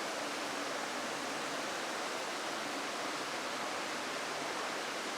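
Steady rush of a waterfall: even, unbroken water noise with no change in level.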